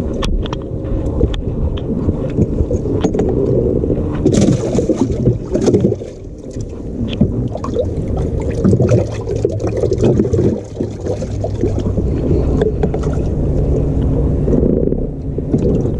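Water sloshing and splashing in a bass boat's livewell as a caught bass is put in, with knocks from the hatch and handling over a steady low rumble of boat and wind noise.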